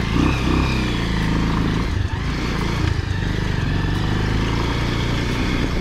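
Motorcycle engine running steadily while riding, its pitch shifting up and down in the first couple of seconds.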